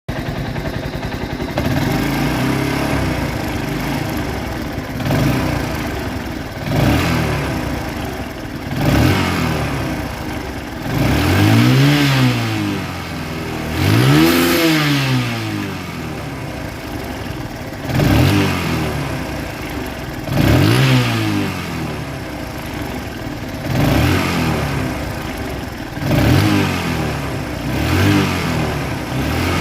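TVS Apache RTR motorcycle's single-cylinder engine idling and revved in short throttle blips, about ten times, each rising and falling in pitch. The owner puts it forward as an engine sound problem.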